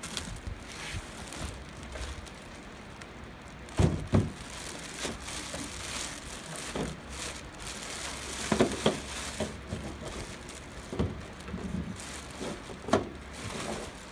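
Clear plastic wrapping rustling and crinkling as a small stick welder is lifted out of its cardboard box and unwrapped, with a few dull knocks as the welder is handled.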